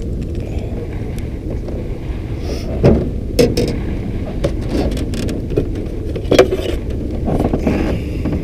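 A steady low rumble with a handful of sharp knocks and clicks, the loudest about three seconds in and again about six seconds in.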